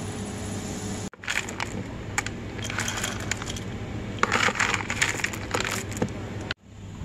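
Dark chocolate buttons scooped from a bulk bin and poured into a glass jar, clattering and clinking against the glass and the plastic scoop, loudest about four to five seconds in. A steady low hum fills the first second.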